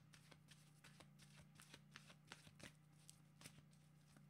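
A deck of oracle cards being shuffled by hand: quiet, quick rustles and flicks of card against card, several a second.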